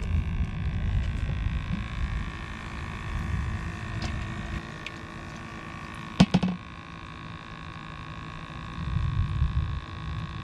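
Plastic bait bucket lid snapping shut, a quick cluster of sharp clacks about six seconds in, while live shrimp are taken out for bait. Around it a gusty low rumble on the microphone comes and goes, over a faint steady high-pitched hum.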